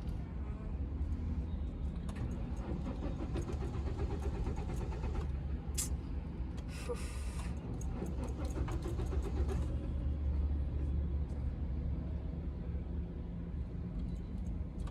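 Car's starter cranking the engine with a steady run of rapid, even pulses; the engine does not catch. The car has a no-start fault: it cranks but will not start.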